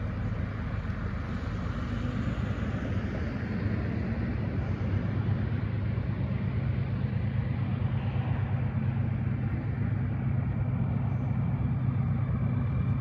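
Low, steady rumble of approaching Union Pacific diesel locomotives, growing slightly louder. A car passes over the crossing about two seconds in.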